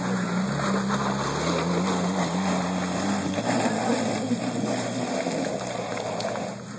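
Jeep Wrangler engine working under load as the vehicle crawls up a steep, muddy slope. Its pitch wavers with the throttle for the first few seconds, then fades into a rough, noisy rumble.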